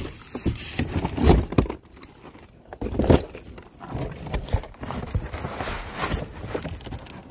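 A cardboard shipping package being opened and handled: irregular thumps and knocks with rustling and scraping of the packaging, and a brighter rustle late on.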